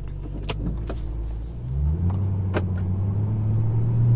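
2006 Mustang GT's 4.6-litre V8 pulling away, its note stepping up about two seconds in and rising steadily as the car gathers speed, running smoothly on freshly fitted MSD Blaster coils and Champion plugs. A few short clicks from inside the cabin.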